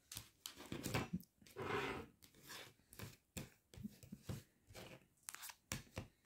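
Stiff plastic diamond-painting coasters clicking, rubbing and scraping against each other in irregular bursts as a stack of them is handled and pulled apart.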